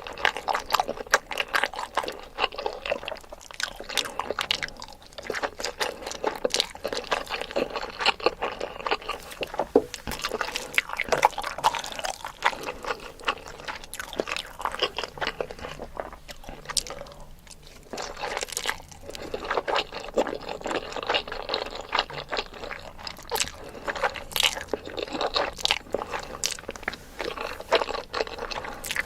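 Close-miked eating of noodles: wet chewing and slurping with many crisp, irregular mouth clicks and smacks, easing briefly about two-thirds of the way through.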